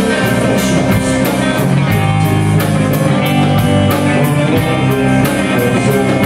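Rock band playing live: distorted-free electric guitars and bass over a drum kit keeping a steady beat of about four strokes a second.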